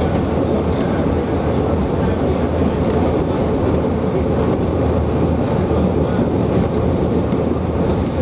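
CPH 'Tin Hare' diesel railmotor running steadily along the track: a constant engine drone mixed with wheel and rail noise.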